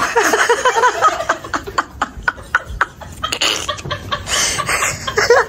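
People laughing, with a run of sharp clicks and knocks in the middle.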